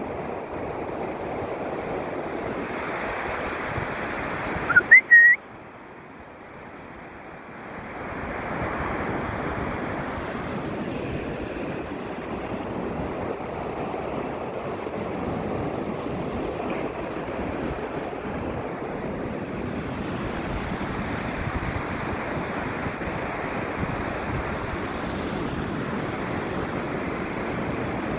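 Surf washing on a beach, a steady rushing noise mixed with wind on the microphone. About five seconds in come a few short, loud, high-pitched rising chirps, and then the background drops lower for a couple of seconds.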